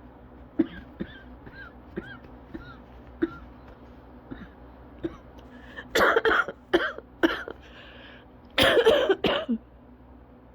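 A person coughing during a cough-variant asthma attack. A run of small, brief catches in the throat is followed by a fit of harsh coughs about six seconds in and another fit of several coughs around nine seconds in.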